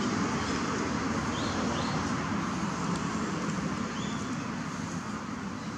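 Steady outdoor background noise: a low rumble under an even hiss, like distant traffic, with a few short high chirps about a second and a half, two and four seconds in.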